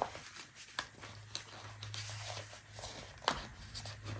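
Handling of a paper planner: a few light taps and clicks, the sharpest about three seconds in, over a low steady hum.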